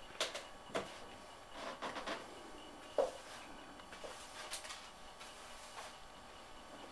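A handful of short, light clicks and knocks at irregular intervals over faint room tone, the loudest about three seconds in.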